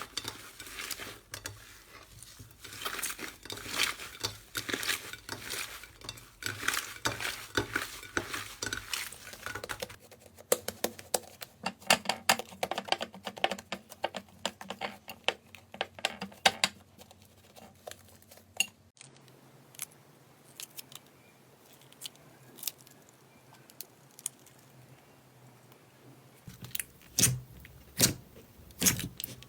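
Slime being squeezed, stretched and poked by hand, giving dense sticky crackling and popping clicks. It runs through several clips that change abruptly, with sharper, louder pops near the end.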